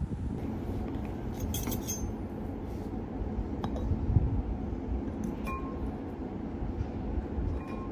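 Utensils clinking and tapping against a ceramic bowl while eating: a few light, separate clinks and a soft knock, over a steady low rumble.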